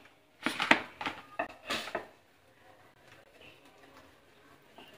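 Rolling pin knocking and rolling on a wooden board as a ball of dough is rolled out flat, about five clacks in the first two seconds.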